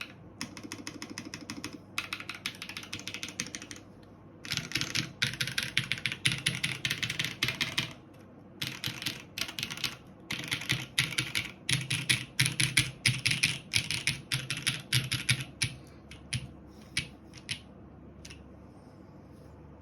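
Typing on a JJW Cloudline mechanical keyboard with lubed JWK Tungsten linear switches on an O-ring-mounted polypropylene plate and GMK keycaps. The keystrokes come in quick flurries, lighter for the first few seconds and then louder, with a short break in the middle, and end in a few single presses near the end.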